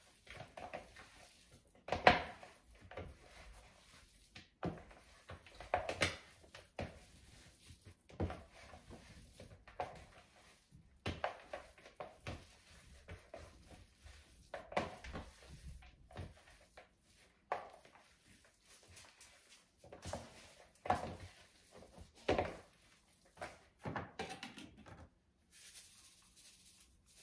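Hands mixing seasoned ground deer meat in a bowl: irregular squishing and knocking sounds, roughly one every second or two.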